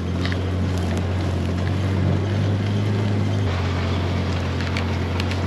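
Side-by-side UTV engine running steadily as it drives along a dirt track, with faint small ticks from the ride. The engine note eases slightly about halfway through.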